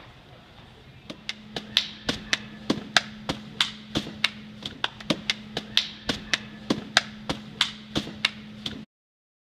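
Hands repeatedly slapping a hollow papier-mâché piñata, quick sharp smacks about three a second, cut off suddenly near the end.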